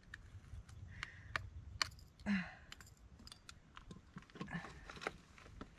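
Scattered small clicks and rustles of hand handling while a flathead catfish is held and unhooked, with a short breathy sound about two seconds in.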